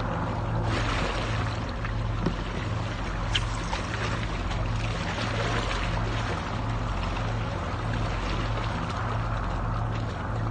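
Steady wash of sea water along a rocky shore under a constant low hum, with one small click about three seconds in.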